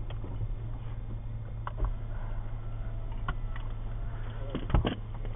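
Car engine running low and steady, heard from inside the cabin during slow parking, with a few scattered clicks and knocks.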